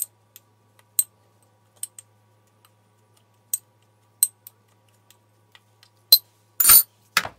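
Metal spoon clinking and tapping against a small dish while stirring a dry spice mix: scattered sharp clicks about once a second, then a louder, longer scrape and one more click near the end.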